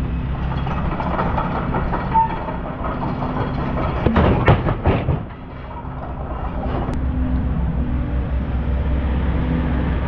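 A diesel engine runs steadily and low throughout. About four seconds in comes a brief cluster of loud, heavy knocks as log rounds are handled and loaded onto the truck's metal load bed.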